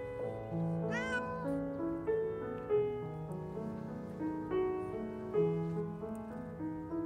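A hungry stray cat meows once about a second in, a single arched call, over gentle solo piano music.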